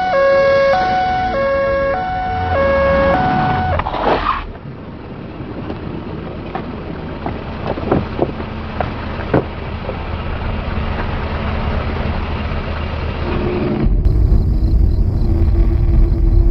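Ambulance siren wailing in a two-tone hi-lo pattern, switching pitch about every three quarters of a second, then cutting off suddenly about four seconds in. A steady hiss with a few scattered knocks follows, and a low rumble sets in near the end.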